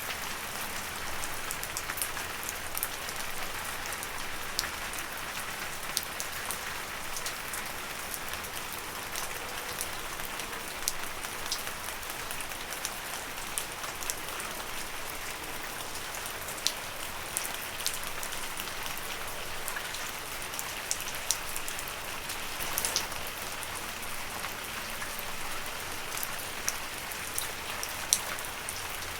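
Steady rain falling, a continuous hiss with many sharp drop taps scattered through it, the odd louder drip standing out.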